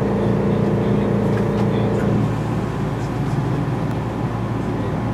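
Running noise inside a Meitetsu μSKY limited-express car (2000 series EMU) moving slowly alongside a station platform. A steady low hum, with a few steady motor tones that stop about two seconds in.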